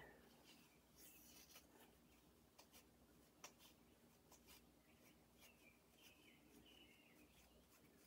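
Near silence: faint room tone with a few faint scattered ticks.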